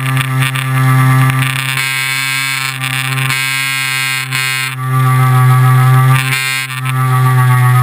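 Loud, steady buzz from a GoPro Hero 2 resonating against its mount on a Cessna 182 in flight, a single low hum with many overtones. It swells louder about five seconds in and dips briefly near the end.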